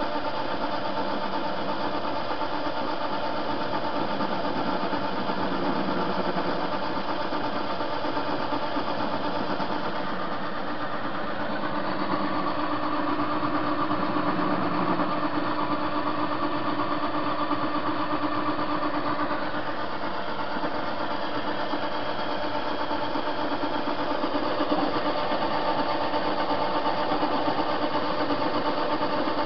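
TV-16 metal lathe running steadily while the cutter turns down a steel hinge blank held in the chuck. A higher, steadier whine holds from about twelve to nineteen seconds in.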